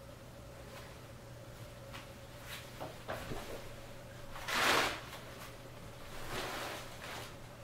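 Fabric of a wedding dress rustling and swishing as it is lifted and handled, with one loud swish about halfway through and a softer one near the end, over a faint steady hum.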